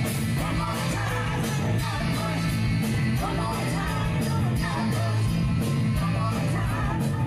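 Live rock band playing: electric guitar, bass and drums with women singing into microphones over the PA.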